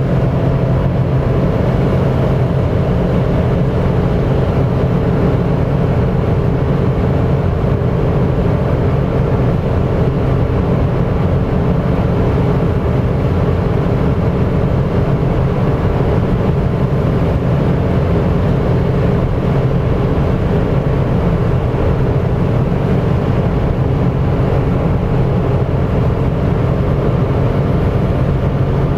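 Mitsubishi Space Star 1.2's three-cylinder engine droning steadily at high revs, heard inside the cabin, as the car runs flat out near its top speed of about 160 km/h. Wind and tyre noise on a wet road run underneath.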